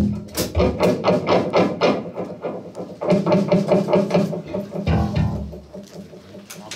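Electric guitar played through the stage amp and monitors for a monitor check, a quick run of plucked notes with bass underneath that stops about six seconds in.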